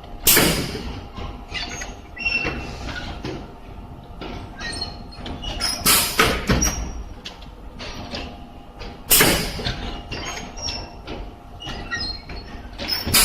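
Shoe upper embossing high-frequency welding machine at work: a steady machine hum, broken by loud, sharp strokes of the press just after the start, about six seconds in and about nine seconds in, with smaller clicks between.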